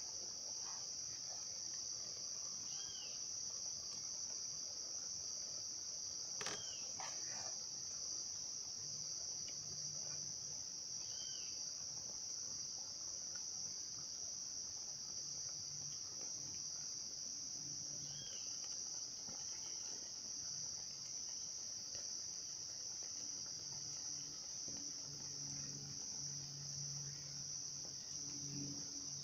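Steady high-pitched drone of insects, unbroken throughout, with a single sharp knock about six and a half seconds in.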